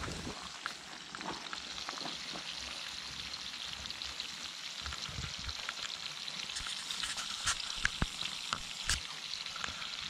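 Food frying in olive oil in a pan: a steady sizzle with scattered small pops, and a few sharper pops in the last few seconds.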